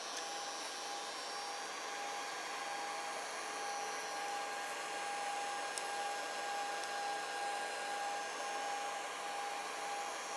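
Steady whir of a 3D printer's small electric cooling fans with a constant high whine, the machine switched on with its heat bed still warm.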